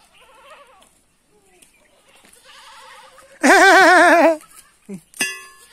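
Goats bleating: faint wavering bleats at the start, then one loud, long quavering bleat about three and a half seconds in, lasting nearly a second. A short sharp click near the end.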